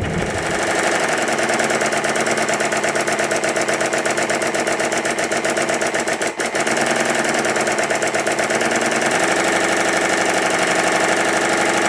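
Stuart triple expansion model engine running fast on compressed air in compound mode, a rapid even beat of exhaust puffs and valve-gear clatter, with a brief dip in loudness about six seconds in. It is running fairly smoothly, though some parts are not yet fastened down properly.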